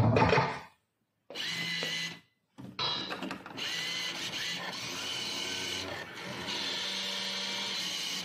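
Electronic sound effects from a CIRSA 'La Máquina del Tiempo' slot machine. Its music cuts off under a second in, a short electronic jingle with a brief tone glide follows, and from about three seconds a steady electronic jingle runs on as the reels stop on a win of 50.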